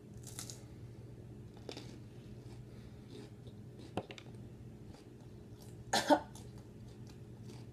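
A person chewing a raw jalapeño pepper, with faint mouth and breathing noises and a sharp click about four seconds in, then a short, loud double cough about six seconds in as the pepper's heat hits.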